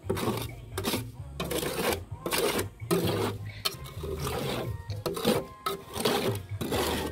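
Bricklayer's trowel scraping and scooping mortar in a wheelbarrow, working the mix. The strokes come in about nine short scrapes, roughly one a second.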